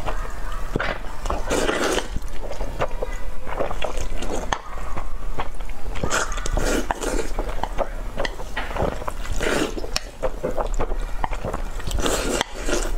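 Close-miked slurping and chewing of noodles: wet sucking slurps with many small lip smacks and clicks, in repeated bouts.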